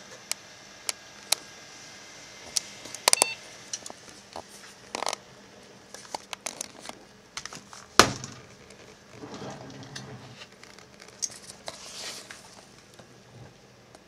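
Scattered sharp clicks and knocks with crinkling rustles, typical of handling noise as the camera is moved. The loudest is a single knock about eight seconds in, followed by a few seconds of low rustling. A faint steady hum of the running desktop PC lies under it.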